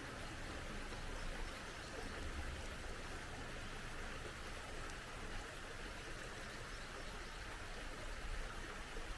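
Small mountain stream flowing steadily: an even, continuous rush of running water.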